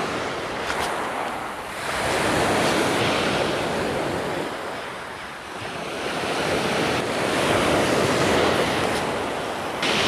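Sea waves washing in, the rushing noise swelling and easing twice, with wind buffeting the microphone.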